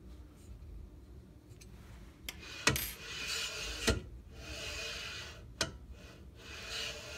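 A VORON 1.5 printer gantry pushed back and forth by hand, its end rubbing and scraping on the aluminium extrusion frame, with sharp clicks and three rasping strokes after a couple of quieter seconds. The gantry touches the frame in places because of imperfections in the aluminium extrusion.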